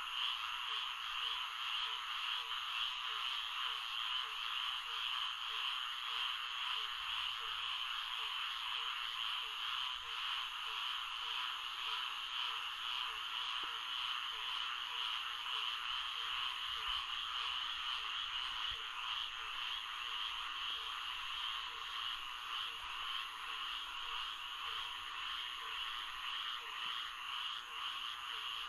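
Florida swamp frog chorus: a dense, steady trilling chorus, with a lower frog call repeating about every half second.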